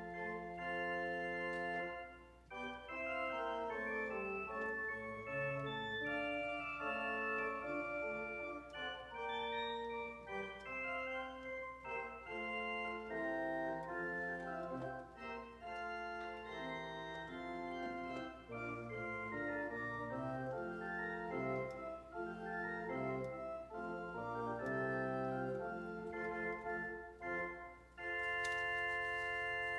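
Church organ playing slow music in sustained notes and chords. It breaks briefly about two seconds in and again near the end, where a new held chord begins.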